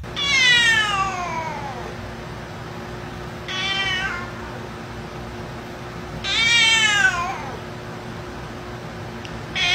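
A black-and-white domestic cat meowing over and over: a long falling meow, a short one, then a longer one that rises and falls, with another beginning near the end.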